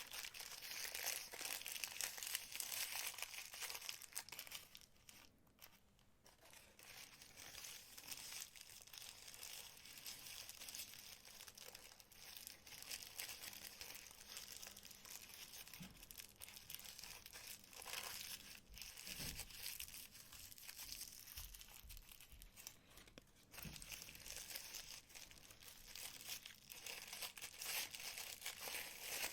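Packaging crinkling and rustling as it is handled and opened, with many small irregular crackles and a quieter lull about five seconds in.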